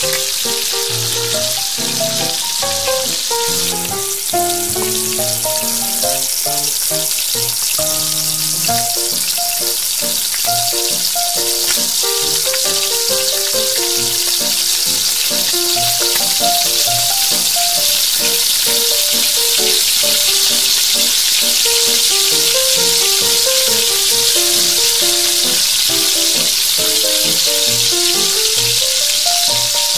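Oil sizzling steadily as bread rolls fry in a kadhai, under background music with a melody.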